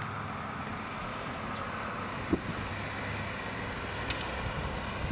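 ACA Screamer rotating siren coasting down late in its wind-down, a faint low steady tone under road-traffic noise, with one short thump about two seconds in.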